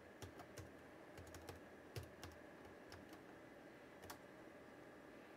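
Faint keystrokes on a computer keyboard, a scattered run of soft clicks while a short command is typed.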